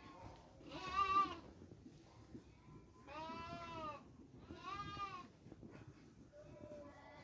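Sheep bleating: three loud, wavering bleats of under a second each, about a second in and then twice in quick succession midway, with a fainter bleat near the end.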